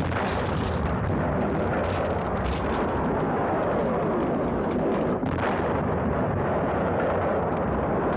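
Continuous battlefield artillery barrage: shell explosions and gunfire merging into a dense, steady din, with sharp cracks scattered through it.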